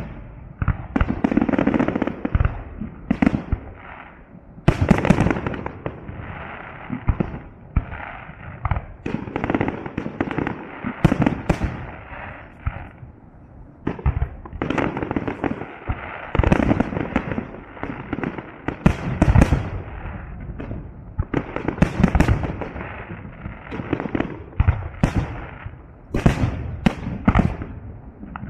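Fireworks display: salute shells bursting in a dense, continuous barrage of sharp bangs and booms over a rumbling background, with a few slightly quieter stretches between the heaviest volleys.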